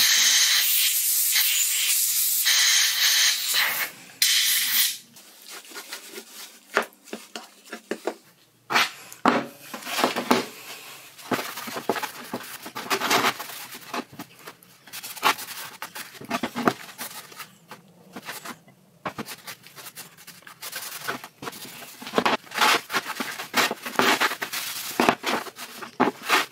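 Aerosol can of WD-40 spraying in one long hiss of about four seconds, then a cloth wiping and rubbing over steel lathe parts in quick, irregular strokes, with frequent knocks as the parts are handled on the bench.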